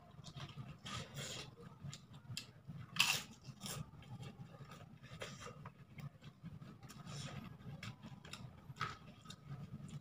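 Nasi uduk eaten by hand off a brown paper wrapping: irregular crinkling and scraping of the paper as fingers pick up rice, mixed with chewing, over a steady low hum. The loudest crinkle comes about three seconds in.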